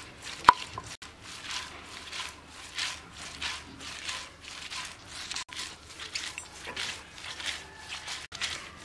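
Cylindrical stone roller rocked and pushed back and forth over a flat grinding stone, crushing sliced red onions with wet scraping strokes about two to three a second. A sharp knock about half a second in.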